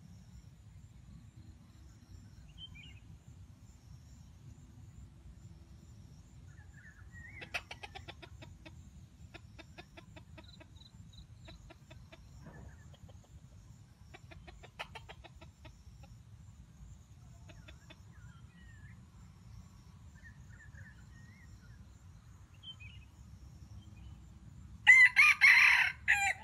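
Junglefowl roosters crowing: two faint, distant crows about 7 and 14 seconds in, then one loud, close crow near the end.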